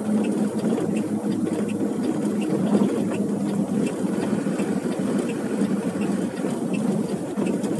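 Truck engine running steadily with tyre noise from driving over a paving-block road, heard from inside the cab.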